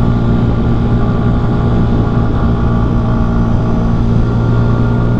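CFMoto Papio XO-1 minibike's single-cylinder engine running at a steady pitch while the bike cruises at constant speed, with wind rush over it.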